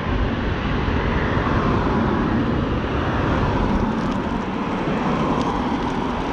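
Steady rushing wind and road noise from riding an electric scooter on a wet road, with a faint wavering whine underneath.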